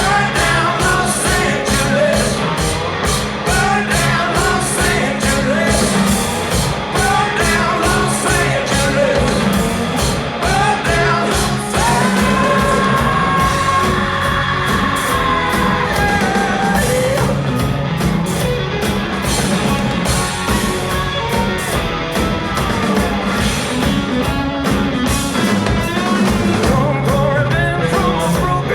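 A rock band playing live and loud: drums, bass and electric guitar under a singer. A long held note comes in about twelve seconds in.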